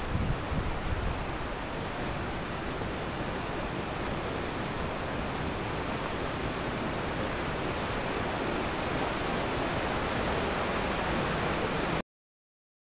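Big Thompson River rushing over rocks: a steady rush of moving water that grows slightly louder, with a few low thumps in the first second. It cuts off suddenly near the end.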